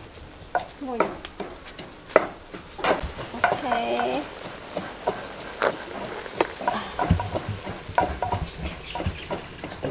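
A knife knocking and scraping against an aluminium pot as a whole chicken is turned in it, in irregular clicks over a faint sizzle of cooking.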